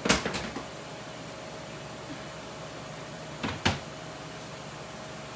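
Kitchen cabinet knocks as a bottle is fetched from a lower wooden cupboard: one sharp knock just after the start with a few smaller clunks after it, and two more knocks about three and a half seconds in. Under them runs the steady hum of the electric countertop grill's fan.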